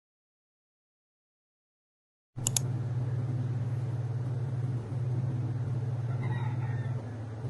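Complete silence for about two seconds, then a click and a steady low hum with faint hiss: the room tone of a bedroom with a wall-mounted air conditioner running.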